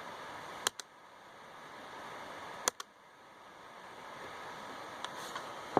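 Pairs of short, sharp clicks from clicking on a laptop, three sets about two seconds apart, over a steady low hiss.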